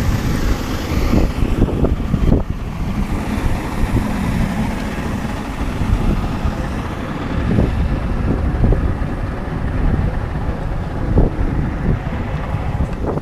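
Wind buffeting an action-camera microphone on a small fishing boat in open, choppy water: a dense, steady low rumble with a few brief thumps.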